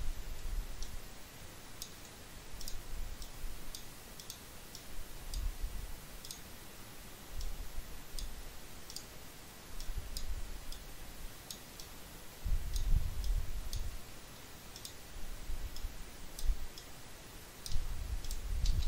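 Irregular sharp clicks of a computer mouse and keyboard, with spells of low rumbling thumps from the desk or microphone, the loudest about two-thirds of the way in and again near the end.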